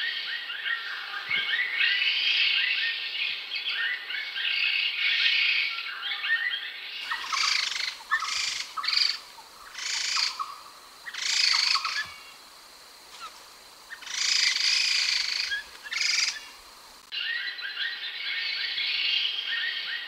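Laughingthrush (khướu đầu xám) singing: a dense run of overlapping chattering calls. In the middle it gives way to separate loud phrases with short pauses between them, then the dense chatter returns near the end.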